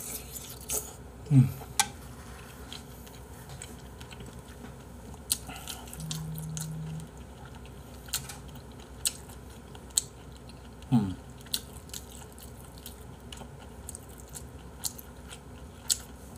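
A person chewing a mouthful of jjamppong-bap (spicy seafood noodle soup with rice) close to the microphone, with scattered wet mouth clicks and smacks. Two short low sounds falling in pitch, about a second in and again about 11 seconds in, and a brief steady hum around 6 seconds.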